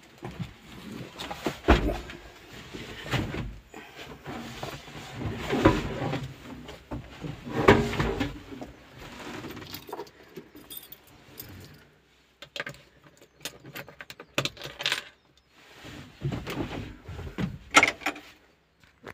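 Irregular knocks, rattles and jangling of keys inside a tractor cab, with the engine not running. The loudest knocks come about 2, 6 and 8 seconds in, then it goes almost silent before more rattling near the end.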